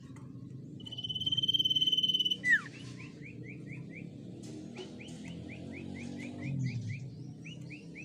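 Common iora singing: a long, finely trilled whistle held on one pitch for about a second and a half, cut off by a sharp downward-slurred note, then runs of short quick notes at about four a second.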